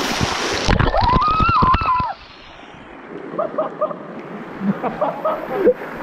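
Water from a small waterfall pouring and spattering close by, a loud hiss that cuts off sharply under a second in. A person then gives a long yell, and after that there is quieter, duller splashing with muffled voices.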